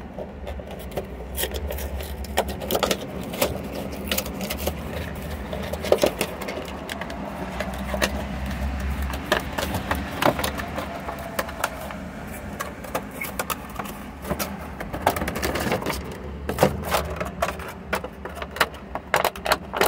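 Cardboard box being opened and clear plastic packaging crinkling and crackling as it is handled, in a dense, irregular run of clicks over a low steady hum.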